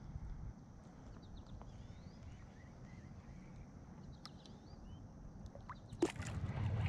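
Small birds chirping faintly over a steady low rumble, with one sharp knock about six seconds in.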